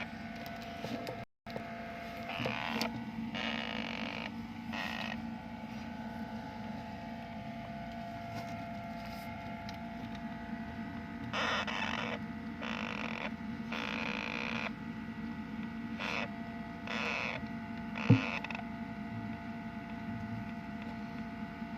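Hamster snoring: short raspy breath sounds repeating at irregular intervals of one to two seconds over a steady background hum. One sharp click near the end.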